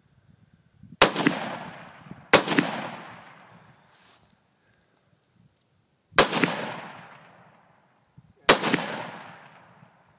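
Four single rifle shots, each with a rolling echo that dies away over about a second and a half: two shots about a second and a half apart, then a pause of a few seconds, then two more about two seconds apart.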